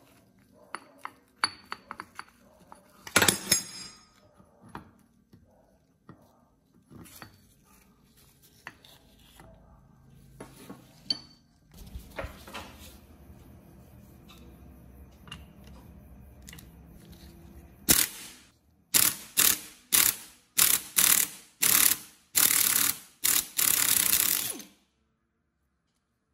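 Hand-tool work on the rusty engine of a 1970 Honda PAL moped: scattered metal clicks and knocks, then a quick series of about a dozen loud short strokes over the last several seconds, closer together toward the end, that stop suddenly.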